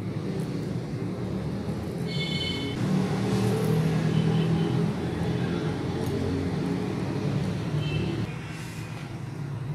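Steady low background rumble, swelling a little between about three and five seconds in, with a brief high-pitched tone about two seconds in.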